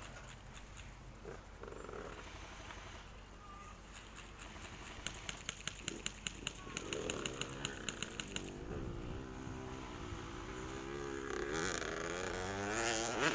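Off-road motorcycle engine revving up and down, getting louder toward the end. A run of about a dozen quick, evenly spaced clicks sounds from about five seconds in for three seconds.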